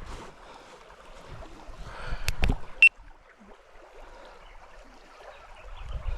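River water running steadily over a shallow riffle. A few sharp clicks come about two and a half seconds in, then a short, bright metallic ping near three seconds.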